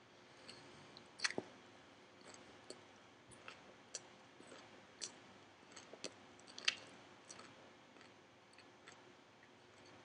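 Quiet chewing of a mouthful of spinach leaves: irregular sharp crunches and clicks, the loudest about a second in and again about two-thirds of the way through.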